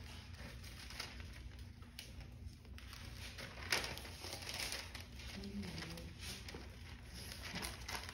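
Bible pages being leafed through and turned, a series of soft paper rustles with one louder rustle a little under four seconds in, over a steady low hum.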